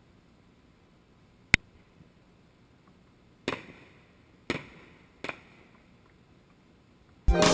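Fireworks exploding at a distance: a single sharp crack about a second and a half in, then three reports with a short echoing tail, about a second apart. Electronic music cuts in at the very end.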